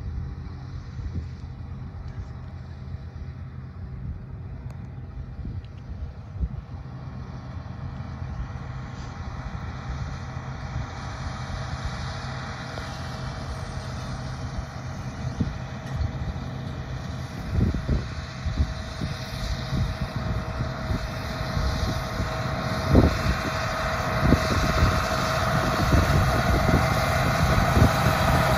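Large John Deere tractor's diesel engine running under load as it pulls a row-crop planter, growing steadily louder as it approaches. A few short low thumps stand out in the second half.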